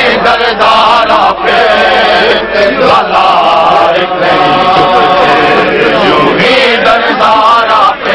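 Many men's voices chanting together, loud and without a pause: a Shia mourning chant (noha) during matam.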